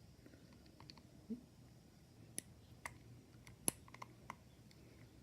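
Faint, scattered clicks and taps of a screwdriver working the tongue washers on a carburetor top, about half a dozen in all, the sharpest about two-thirds of the way through.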